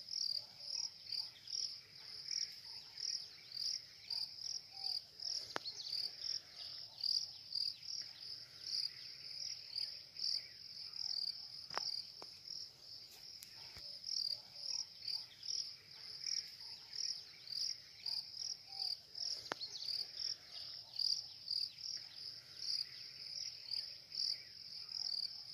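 Chorus of forest insects chirping in a steady, fast pulse, a few pulses a second, with a few faint sharp clicks or snaps scattered through it.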